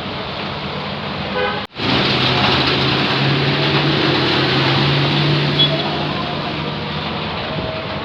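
City street traffic: a steady hiss of passing vehicles with a vehicle horn sounding. The sound cuts out sharply for a moment after about a second and a half, then comes back louder.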